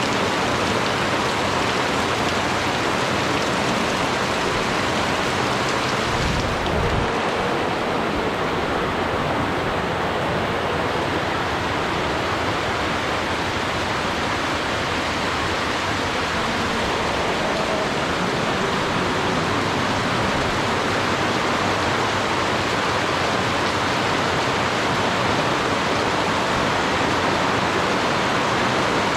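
Rain falling steadily, a dense even hiss of drops, with a brief low rumble about six seconds in.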